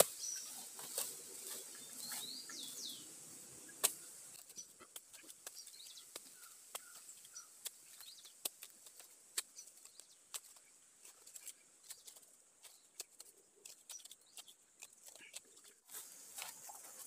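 Scattered crackling and clicking of dry bamboo leaf litter being handled and stepped on, with one sharper snap about four seconds in. A bird chirps a few times near the start, over a faint steady high whine.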